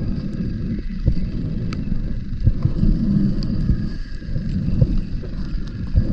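Scuba diver's regulator exhaust bubbles and body movement heard underwater through the camera housing: a muffled, uneven low rumble that swells and dips every second or two, with faint scattered clicks.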